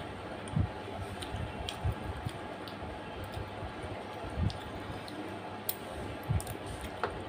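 Fingers mixing rice into a thick curry on a metal plate: soft squishing, with small wet clicks and a few soft low thumps. Near the end come mouth and chewing sounds as a piece of chicken is eaten.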